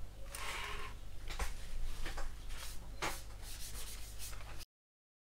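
Soft rubbing and scuffing of a small tool worked over the plastic fuselage of a scale model aircraft, with a couple of light handling clicks. The sound cuts off abruptly about four and a half seconds in.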